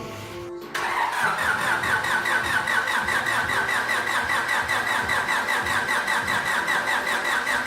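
Honda B18C four-cylinder engine turning over on its starter motor, cranking steadily at about six pulses a second without catching. It starts abruptly just under a second in. The engine is not firing because there is no spark, from a broken distributor.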